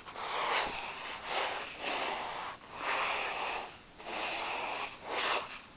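Footsteps in sandals crunching through a layer of fresh hailstones, about one step a second.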